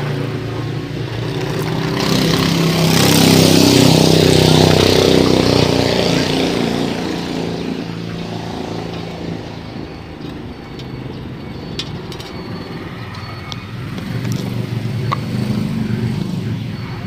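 A motor vehicle engine passing by, growing louder over the first few seconds and then fading away, with a smaller swell again near the end. Light clicks and rustles of a plastic bottle and rubber tubing being handled.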